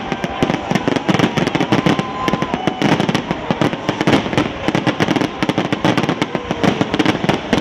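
Fireworks going off in a rapid, unbroken barrage, many bangs and crackles each second.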